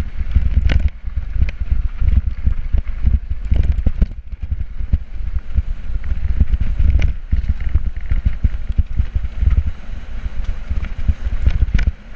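Wind buffeting the microphone as a mountain bike rides over rough dirt singletrack, with a low, fluttering rumble and frequent rattles and knocks from the bike over the bumps.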